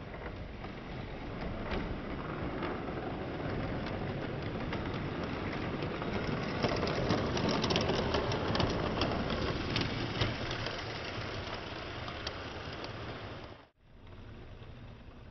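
OO gauge model Class 37 locomotive and coaches running along the track: a steady motor-and-wheel running noise with many small clicks, getting louder as the train passes closest about seven to ten seconds in. It cuts off suddenly near the end, leaving a quieter hiss.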